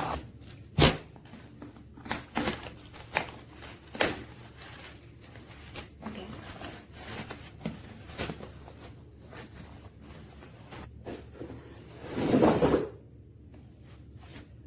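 Hands unpacking a mail-order parcel with a book inside: scattered knocks and clicks of the package being handled, rustling packaging, and a louder rustling burst lasting about a second near the end.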